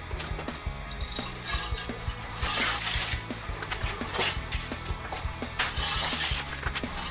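Background music over four short hissing bursts of de-icing salt grains flung from the spreader disc of a homemade salt spreader built from a car differential.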